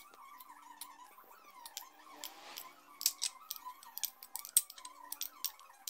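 Metal spoon stirring instant noodles with their seasoning on a glass plate: light, scattered clinks and scrapes of the spoon against the glass.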